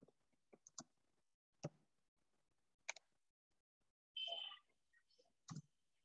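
Faint, scattered clicks and taps over near-silent room tone, with a brief high squeak about four seconds in.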